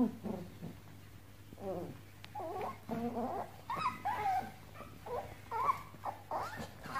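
Puppies whining and yipping during play-wrestling: a string of short calls that rise and fall in pitch, sparse at first and coming thick and fast from about halfway through.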